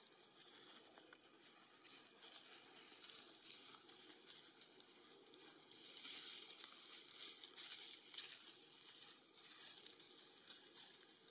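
Faint outdoor ambience in the trees: a soft, uneven hiss with light rustling that swells and fades, loudest about two-thirds of the way through.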